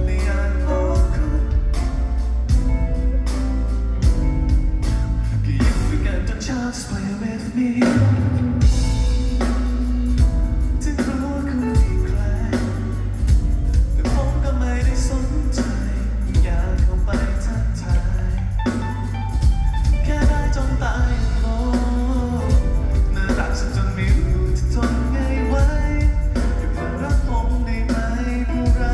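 A live band playing a pop-rock song, with a drum kit keeping a steady beat under bass and guitar, and some singing.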